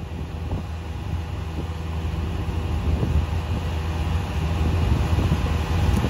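Foley Belsaw circular sawmill running, its big circular blade feeding into a pine log; a steady low mechanical hum with a rough sawing noise over it, slowly getting louder.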